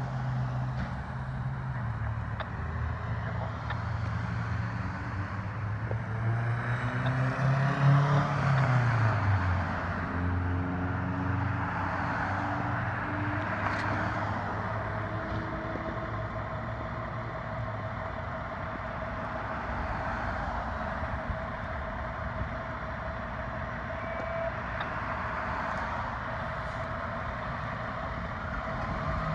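Road traffic: vehicle engines running, with one vehicle passing loudly about eight seconds in, its pitch dropping as it goes by, and engines speeding up afterwards.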